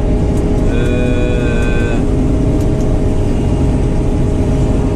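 Claas combine harvester running steadily under load while cutting wheat, heard from inside the cab: a dense, even machine drone with a steady hum. A higher, slightly wavering tone sounds for just over a second, starting under a second in.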